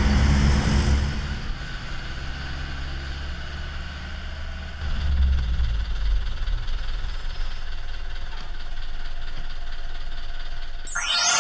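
Bus engine running with a steady low rumble that swells about five seconds in.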